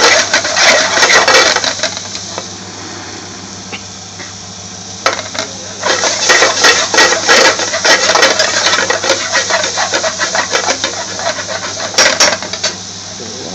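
Metal spoon scraping and clattering against an aluminium frying pan as julienned butternut squash is stirred and tossed, over a steady hiss from the hot pan. The stirring stops for about three seconds after the first two, starts again about five seconds in, and a single sharp knock of the spoon on the pan comes near the end.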